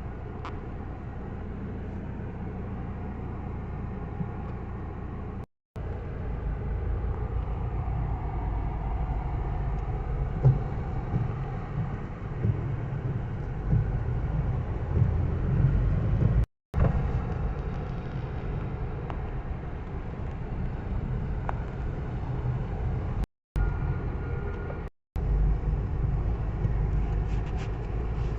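Steady low rumble with a hiss above it, broken by four brief drops to silence where the recording is cut.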